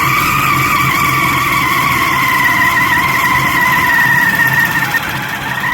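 RC car motor and gearbox running at steady speed with a high whine, its pitch sagging slightly and then cutting out near the end.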